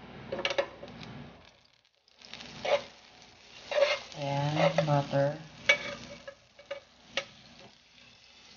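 Butter melting and sizzling in a hot nonstick frying pan as it is stirred with a metal spoon, with several sharp clicks of the spoon against the pan. A short stretch of voice comes through about four to five seconds in.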